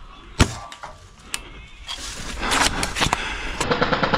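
Toy blaster skirmish fire: a single sharp shot, another about a second later, then from about two seconds in a rapid rattle of automatic blaster fire.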